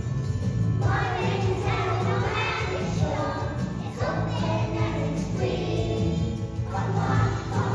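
A choir singing a song to a steady instrumental accompaniment.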